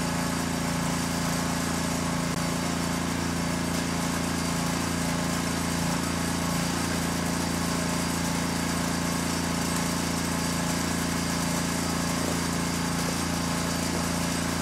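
The snow-pushing cart's small DOV engine idling steadily, an even low hum that holds the same speed throughout.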